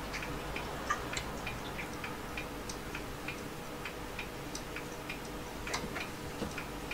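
Faint, light ticking clicks, about three a second and somewhat uneven, over a low steady hum.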